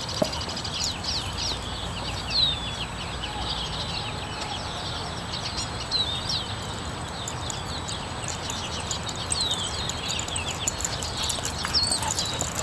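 Small birds chirping on and off, short high falling chirps, over a steady low outdoor rumble.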